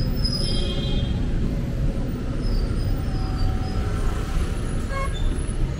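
City street traffic: a steady rumble of passing cars, with a few faint short high-pitched tones above it.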